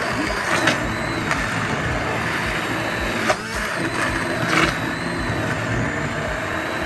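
Braun electric hand blender running steadily while it purées thick cooked wheat porridge in a steel pot, with a few brief sharper noises along the way.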